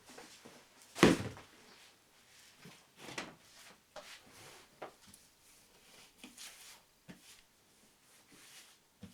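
Handling noises while unpacking: scattered knocks, clicks and rustling, with one loud sharp knock about a second in.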